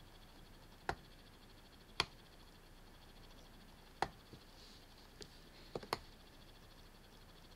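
Computer mouse clicking: about six sharp single clicks a second or two apart, the last two in quick succession, over a faint steady hiss.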